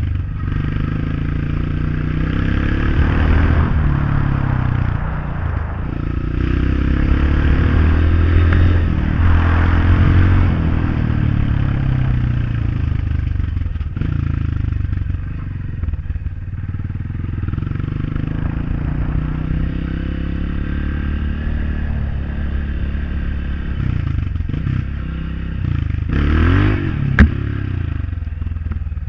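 Honda CRF off-road motorcycle's engine running while being ridden, its pitch rising and falling with the throttle. A single sharp knock sounds near the end.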